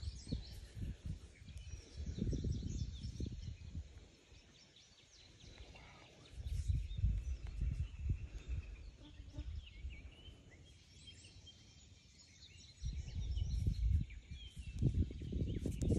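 Birds chirping and calling throughout, with several seconds-long bursts of low rumble from wind buffeting the microphone, the loudest near the start, in the middle and near the end.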